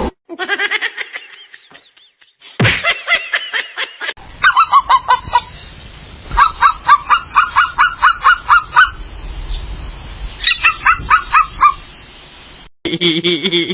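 Bird calls in several short clips cut one after another, the longest being rapid runs of repeated calls, about five or six a second.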